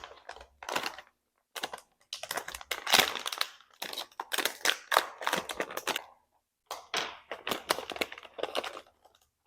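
Plastic packaging crinkling, with sharp clicks and rustles, as small LED turn-signal bulbs are handled and unwrapped. It comes in stretches with two short pauses.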